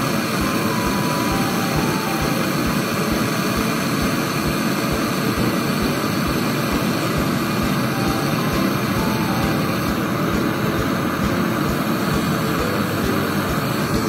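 Hand-held gas brazing torch burning with a steady hiss while brazing a copper pipe joint on a refrigerator compressor.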